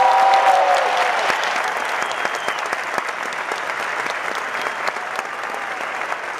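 Large concert crowd applauding, with a few held cheers in the first second, the applause gradually dying down.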